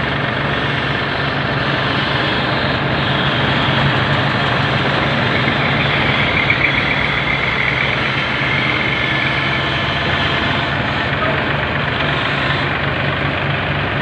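Combine harvester's engine running steadily as the tracked machine climbs up onto a trailer. A brief high, fluttering whine comes about six seconds in.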